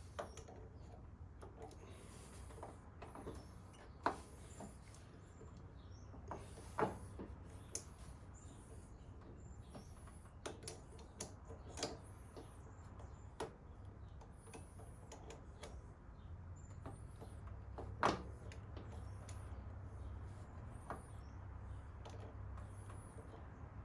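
Needle-nose pliers working the bent end of a motorcycle rear brake caliper's pad pin to straighten it: scattered sharp metal clicks and taps, a dozen or so, over a low steady hum.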